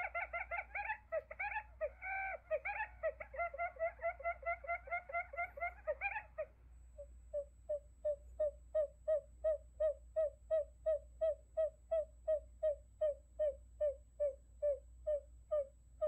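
Recorded quail decoy calls. A fast, dense chattering run of calls lasts about six seconds, then gives way to a regular series of single short notes, about three a second, which grow louder at first.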